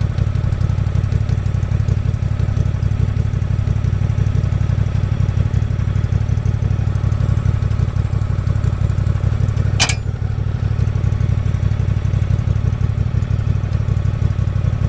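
Old Craftsman garden tractor's engine running steadily at an even speed, with one sharp click just under ten seconds in.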